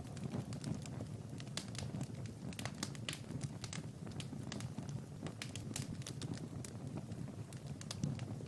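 Wood fire crackling, with irregular sharp pops over a steady low rumble of the flames.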